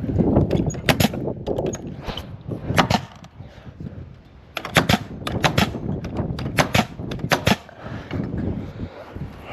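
Framing nail gun firing nails into timber rafters: a string of sharp shots, several in quick runs.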